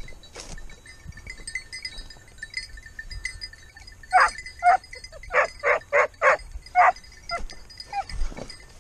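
Hunting dog barking in a quick run of about eight barks, roughly three a second, starting about halfway through, followed by a few fainter yelps.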